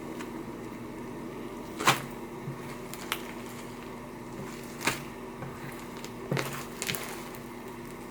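Inflated slime being stretched and squeezed, giving about five short, sharp pops as trapped air bursts, the loudest about two seconds in, over a steady low hum.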